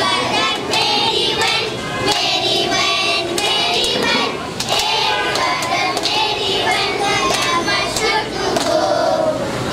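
A group of young children singing together in chorus, with a few short sharp clicks.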